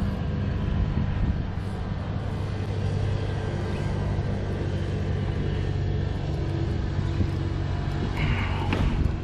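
Steady low hum of a motor, with a brief splashy noise near the end as a hooked bass is brought up beside the boat.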